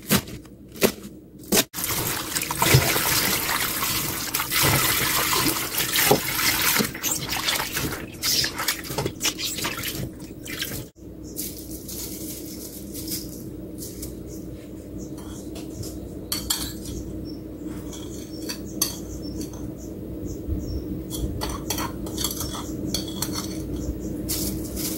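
A few knife chops through napa cabbage on a cutting board. Then a long stretch of running water and clattering as the cabbage pieces are washed in a stainless steel bowl. Near the middle this gives way to quieter light ticking as fine sea salt is sprinkled over the cabbage leaves in the bowl.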